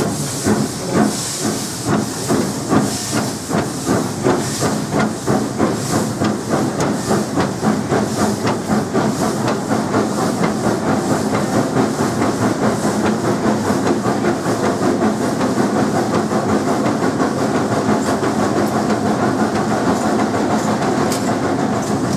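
GWR King class four-cylinder steam locomotive King Edward II working from the footplate: exhaust beats over a constant steam hiss, starting about one a second and quickening steadily into a rapid beat as the engine gathers speed.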